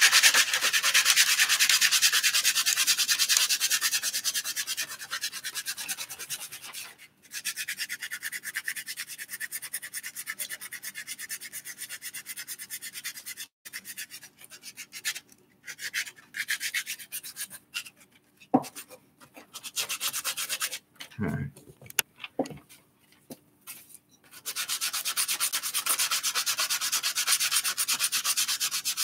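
Sandpaper rubbed by hand on a small wooden block with quick back-and-forth strokes. The sanding breaks off about seven seconds in, leaving only short scattered strokes and a couple of light knocks, then goes on steadily again near the end.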